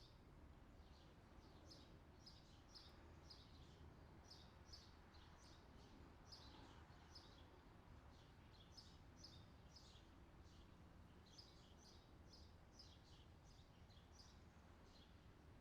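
Faint birds chirping: short, high chirps a few times a second, many dropping slightly in pitch, over a low steady background hum.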